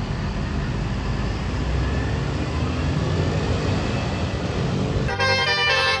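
Bus engine and road noise, then about five seconds in a bus's multi-tone telolet air horn (a Basuri horn) starts abruptly, sounding several pitches together as a chord.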